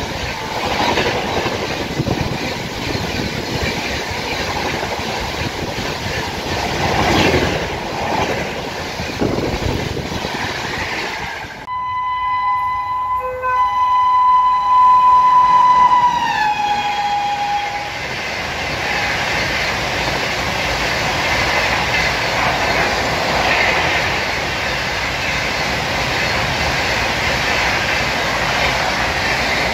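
Indian Railways passenger train passing at speed close to the platform. After a cut, an electric locomotive sounds its air horn for about five seconds as it approaches, and the horn drops in pitch as it passes. Its train of LHB air-conditioned chair cars then rushes by.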